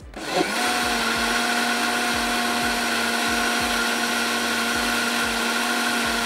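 Electric blender switched on: its motor spins up with a brief rising whine in the first half second, then runs steadily at one pitch, mixing a batter.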